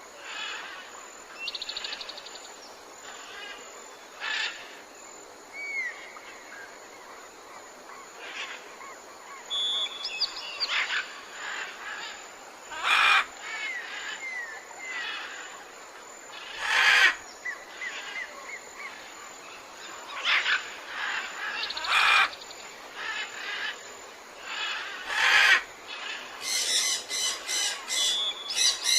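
Tropical forest ambience: many birds calling, with chirps, short whistled glides and trills over a steady background hiss. Every few seconds a loud harsh call stands out, and near the end comes a rapid run of calls.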